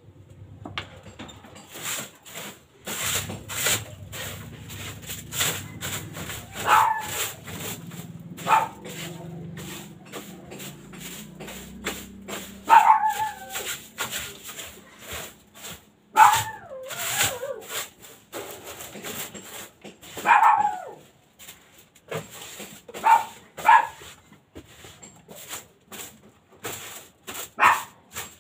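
Short whining, yelping animal calls, about eight of them, bending in pitch, over a steady run of scraping and knocking clicks.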